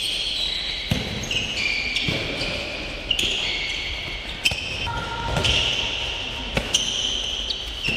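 Handball practice on an indoor court: a handball bouncing and smacking into hands in sharp thuds, over frequent short, high squeaks of sneakers on the hall floor.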